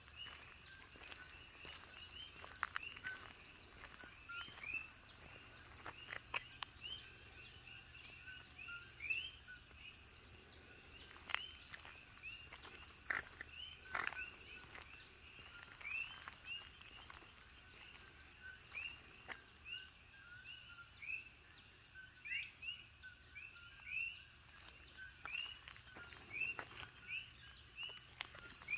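Night chorus of coqui frogs: many overlapping short two-note calls, each ending in a quick upward sweep, repeating without pause over a steady high-pitched insect drone.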